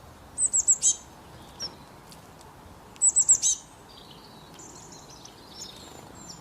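A songbird singing: two loud phrases, about two and a half seconds apart, each of four quick, very high falling notes, followed by softer high twittering.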